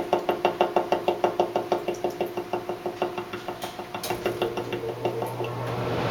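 Carrier central air conditioning unit making its banging noise: a rapid, even knocking of about six knocks a second that weakens and dies away about four to five seconds in, while a steady rush of air builds near the end. The owners hear this banging only when the fan is on AUTO in outdoor heat above 80.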